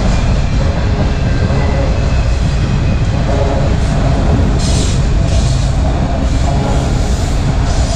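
Enclosed autorack freight cars of a CSX train rolling past close by: a loud, steady rumble of steel wheels on the rails with the clatter of the car bodies, and a brief harsher burst of high-pitched noise about halfway through.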